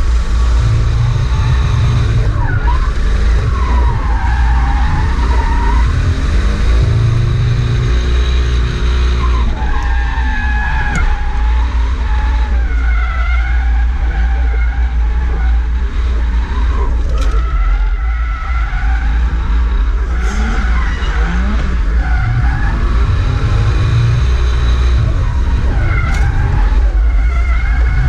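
Toyota JZX100's straight-six engine revving up and falling back several times, heard inside the cabin while the tyres squeal through drifts, the squeal wavering in pitch.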